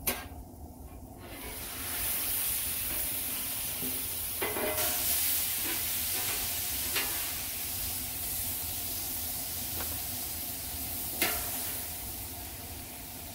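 Thin-sliced ribeye steak sizzling on a hot flat-top griddle. The sizzle swells up about a second and a half in and holds steady, with a few sharp metal ticks from the spatulas on the steel.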